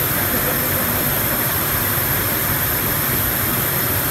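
Steady drone of factory machinery and ventilation: a constant, even noise with a low hum underneath and no distinct knocks or changes.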